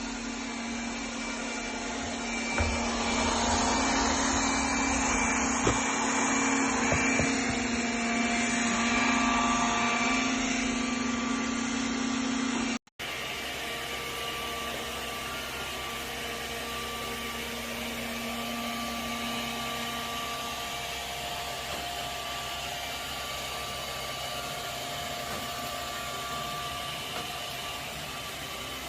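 Robot vacuum cleaner running: a steady motor hum with a whine and a few light knocks. About thirteen seconds in, the sound cuts out for an instant and resumes as a steadier, more even hum.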